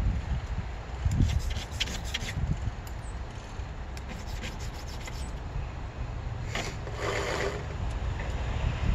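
Flat file scraping across the steel rakers of a chainsaw ripping chain: a few short strokes about a second or two in and another near the seven-second mark, over a steady low rumble.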